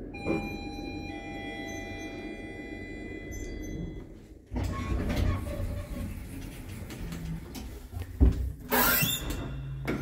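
Lift arrival chime, a two-note ding-dong that rings out for about three seconds. Then the car's sliding doors open with a low motor rumble. A sharp thump and a rattle come near the end as the swing landing door with wired glass is pushed open.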